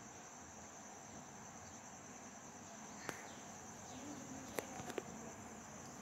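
Faint, steady high-pitched cricket trill, with a sharp click about halfway through and three more clicks in quick succession near the end.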